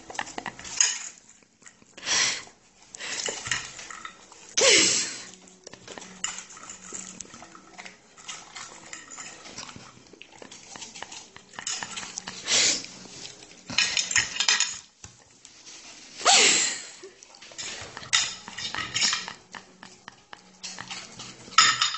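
Cutlery and dishes clinking and clattering on a table, with a handful of louder sharp clatters spread irregularly through.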